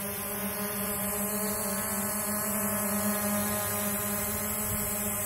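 SJRC F11 quadcopter's brushless motors and propellers humming steadily as the drone hovers low.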